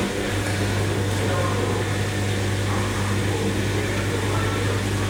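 LG washing machine running with a steady motor hum, settling in just after a short knock at the start.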